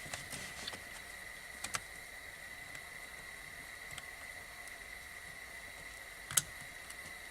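Faint clicks and taps of hands working hoses and electrical connectors on an engine, the sharpest about six seconds in, over a low hiss with a steady high-pitched tone.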